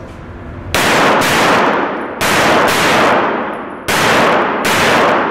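Gunshots from a competitor engaging targets: about six shots, mostly in quick pairs, each followed by a long echo in the enclosed indoor range.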